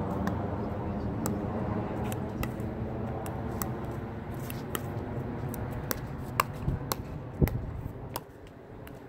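Pickleball dink rally: sharp clicks of the plastic ball struck back and forth by paddles and bouncing on the hard court, about two a second, over a steady background noise that drops near the end.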